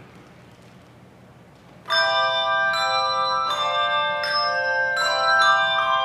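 A quiet hush for about two seconds, then a handbell choir comes in on a loud ringing chord. Fresh chords are struck about every second after that, each ringing on and overlapping the next.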